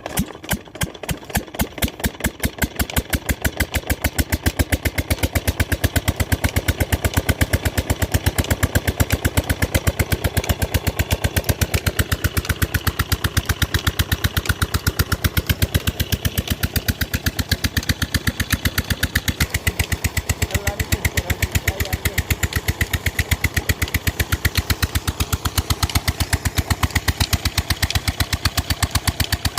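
Restored 22 HP Petter diesel engine firing up and picking up speed over the first couple of seconds, then running at a steady, even exhaust beat.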